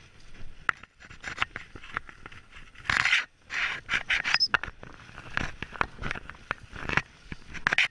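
Footsteps swishing through rough grass and weeds, with close rustling of clothing and gear against the microphone; a louder burst of rustling about three seconds in.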